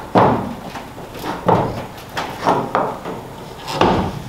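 A run of sharp metallic clunks and creaks, about six in all, as the edge of a steel sheet-metal tail panel is bent by hand with a tool to match the contour of the quarter panel. The loudest come at the start and near the end.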